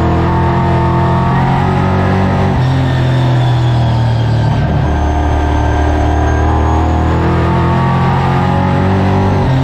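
V8 engine of a Late Model stock car running hard at racing speed, heard from inside the cockpit; its pitch dips and climbs a little every few seconds.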